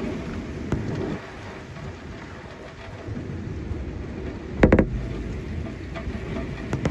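Thunderstorm: steady heavy rain with thunder rumbling low. A sharp clatter of several quick impacts about four and a half seconds in is the loudest sound, with a smaller one near the end.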